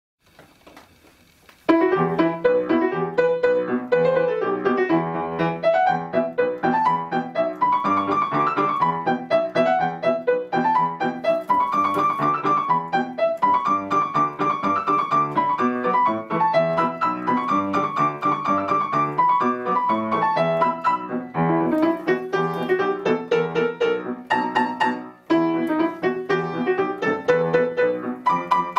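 Background piano music playing a flowing melody over chords, starting about two seconds in after a faint quiet opening.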